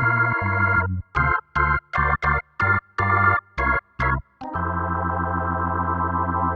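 Workstation keyboard played without accompaniment: a held chord, then a run of about nine short staccato chords, then a long chord held steady without fading.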